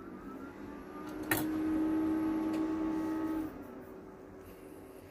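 Konica Minolta bizhub 363 copier starting up after being switched on: a steady machine hum of several held tones builds up, with a sharp click just over a second in. The loudest whirring drops off at about three and a half seconds, leaving a quieter steady hum as the machine begins to warm up.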